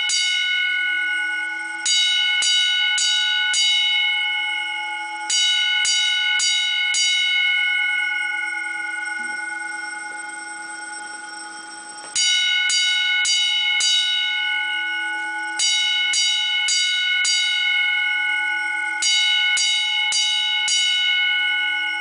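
Single-stroke fire alarm bells of a 1950s Autocall system (10-inch gongs) striking the coded 4-4-4-4 march-time signal: groups of four strokes, about two a second, each group ringing on and fading before the next. About seven seconds in the groups stop for a pause of about five seconds between rounds, then a new round of four-stroke groups begins.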